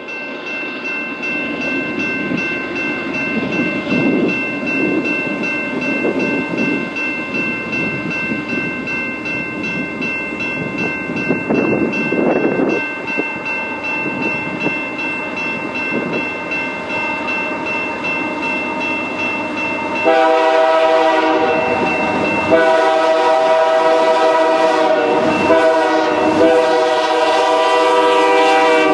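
Canadian Pacific freight train approaching with its locomotive bell ringing steadily over the rumble of diesel engines and wheels. About twenty seconds in, the air horn starts the grade-crossing signal: two long blasts, a short one, then a long one that carries on as the locomotives pass close by.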